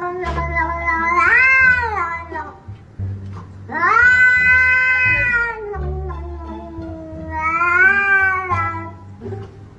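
A cat yowling in three long, drawn-out meows, each rising and falling in pitch, with music playing underneath.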